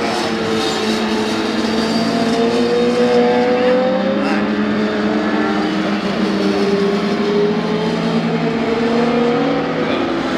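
Several racing motorcycles lapping the circuit, their engines running at high revs. Several engine notes overlap, each rising and falling in pitch as the bikes go round.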